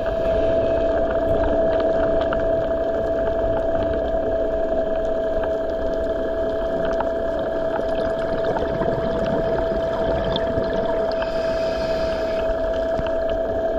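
Underwater ambience: a steady hum holding one constant tone, with scattered faint clicks.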